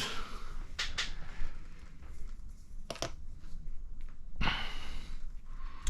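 Quiet handling of small shock parts and the grease container on a workbench: a few sharp little clicks about one and three seconds in, then a short breathy hiss about four and a half seconds in.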